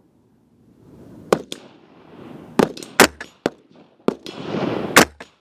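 Rifle fire: an irregular string of about nine sharp shots in five seconds, some loud and some fainter. A rushing hiss rises and falls between the shots.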